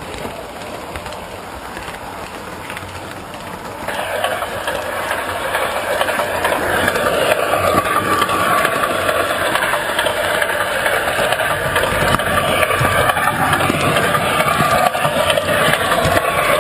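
Model train running along three-rail metal track: the steady whirr of its motor and the rattle of its wheels on the rails, growing louder about four seconds in.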